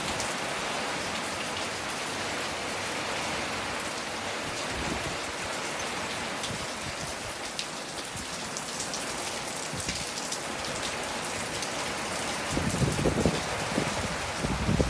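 Heavy rain pouring steadily in a storm, an even hiss, with low rumbling that swells in the last couple of seconds.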